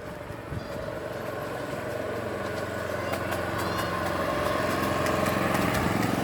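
Engine of a miniature-railway locomotive built as a Class 35 diesel replica, running steadily and growing louder as it approaches.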